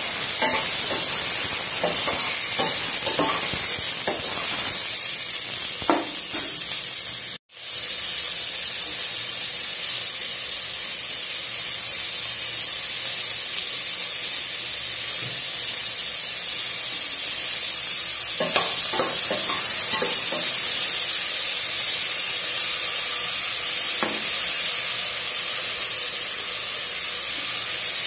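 Onion, tomato and garlic sizzling in oil in a stainless steel pot, with the spoon scraping and tapping the pot in short spells of stirring. The sound drops out for a moment about seven seconds in.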